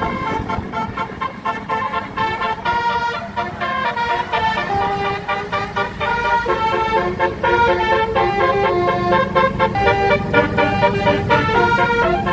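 Bus telolet (Basuri-style) multi-tone air horn playing a tune, its notes stepping up and down in quick succession, over a running bus engine.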